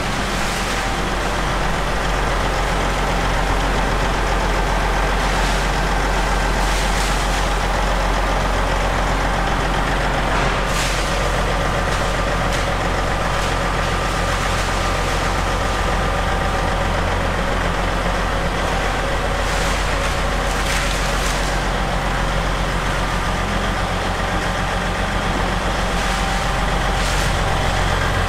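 Diesel power unit of a Rotochopper B66 grinder running steadily: a loud, even drone with a faint steady whine above it. Short hisses cut in several times.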